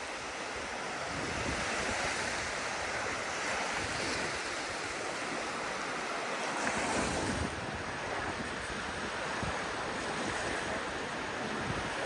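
Small Baltic Sea waves lapping and breaking along a sandy shore, a steady wash of surf.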